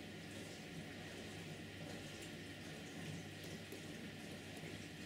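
Faint steady hiss with a low hum: room tone, with no distinct tool sounds.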